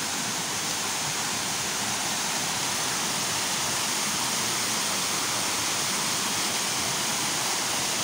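Waterfall pouring over rock slabs into a pool, a steady, even rush of water that does not change.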